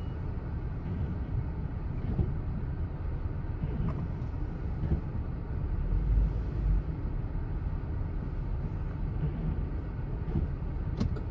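Low, steady rumble of a vehicle's engine and road noise heard from inside the cabin while it creeps along in slow traffic, with a deeper swell about six seconds in.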